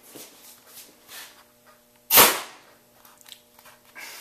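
A homemade PVC air cannon, pumped by bicycle pump to 25 psi, fires once about two seconds in: one sharp, loud pop of released air that dies away quickly, launching a wad of paper.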